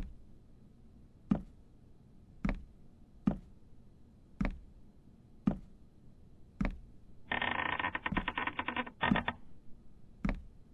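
Single dull knocks, evenly spaced about once a second, with a harsh electronic buzzing rattle lasting about two seconds near the end.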